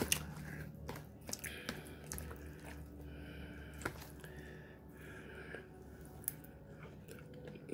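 Quiet eating: a metal fork clicking now and then against a plastic food container, with faint chewing in between.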